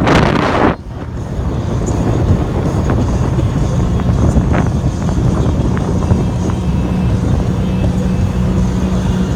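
Tige 21i wakeboard boat's inboard engine running steadily under way, a low drone with a steady hum that grows stronger near the end. A loud rush of wind noise on the microphone at the start cuts off suddenly before a second in.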